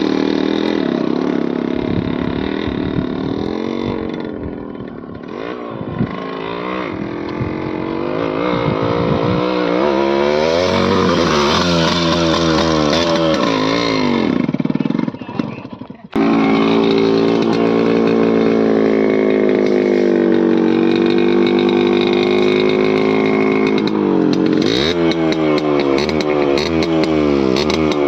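Yamaha RX 100 two-stroke motorcycle engine revving up and down repeatedly. The sound drops away and breaks off briefly about fifteen seconds in, then resumes at full level.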